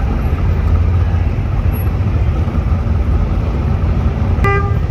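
A classic late-1960s-style pickup truck's engine rumbling steadily as it drives slowly past. A short, high beep sounds near the end.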